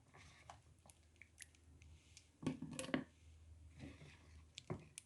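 Wet, freshly washed dried figs handled and dropped into a couscoussier to drain: faint scattered squelches and clicks with dripping water, and a few louder knocks about halfway through and again near the end.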